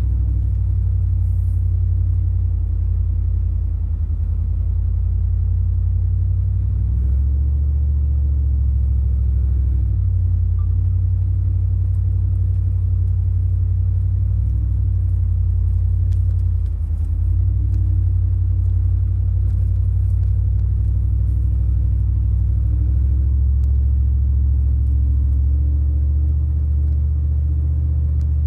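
Ford F-150 pickup's engine pulling under load at low revs, heard from inside the cab as a steady low rumble. Its pitch steps up and down a few times as the truck climbs a steep, uneven 15% dirt grade.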